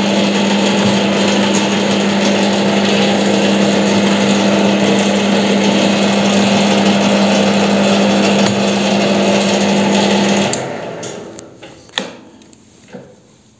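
WEISAN CJM360 metal lathe running under power with the cross feed engaged: a steady machine hum with a strong low tone from the motor and gears. About ten and a half seconds in it is switched off and winds down over a second or so, followed by a click from the headstock controls.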